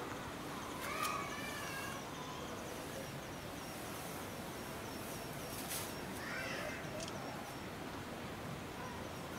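Outdoor ambience with a steady background murmur, a high short chirp repeating about twice a second, and two brief pitched calls, one about a second in and one about six and a half seconds in.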